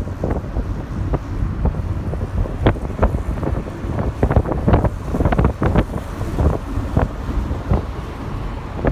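Wind buffeting the microphone at the side window of a moving car, in many short, uneven gusts over the steady low rumble of the car on the road.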